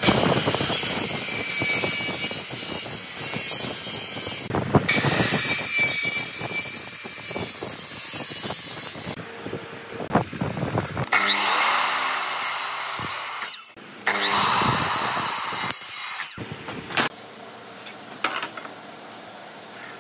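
Handheld circular saw cutting across a wooden board, two cuts of about four seconds each with a short break between them. Two shorter noisy stretches follow about halfway through.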